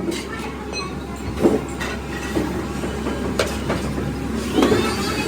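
Workshop machinery running with a steady rumble, with irregular metal clanks and a brief squeal of metal near the end.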